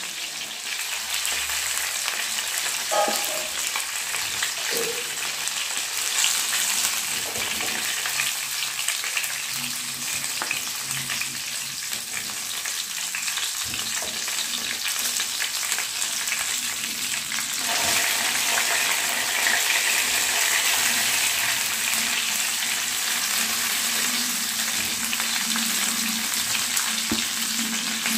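Chicken pieces sizzling steadily as they shallow-fry in hot oil in a nonstick frying pan, with small scrapes and taps of a spatula lifting the pieces out. The sizzle grows a little louder about two-thirds of the way through.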